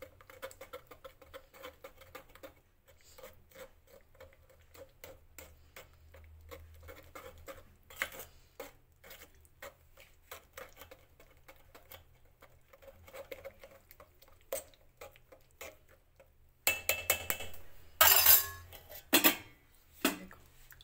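A metal spoon scraping and clicking against a stainless-steel mesh sieve as ash gourd pulp is stirred to press the juice through. Over the last few seconds come louder clanks and scrapes of steel against the steel pot.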